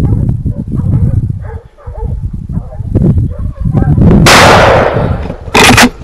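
Two shotgun shots about a second and a half apart near the end, the first with a long echoing tail, fired at a wild boar breaking from cover. Before them, hunting dogs bark and yelp in the brush.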